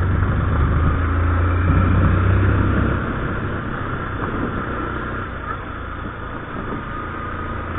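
Motorcycle engine running as it is ridden along a dirt road, under a steady rush of noise. The engine is louder for about the first three seconds, then eases off.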